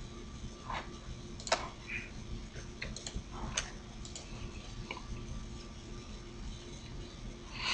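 Several sharp, scattered computer mouse clicks over a steady low electrical hum.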